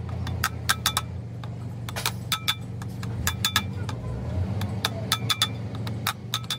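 Hammer tapping on a heavy Mercedes truck's steel clutch disc: quick irregular clusters of light strikes, each a sharp metallic clink with a brief ring, over a steady low hum.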